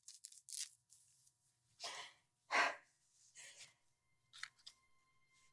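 A few short, soft rustling noises, the loudest about two and a half seconds in. Quiet background music with held notes comes in near the end.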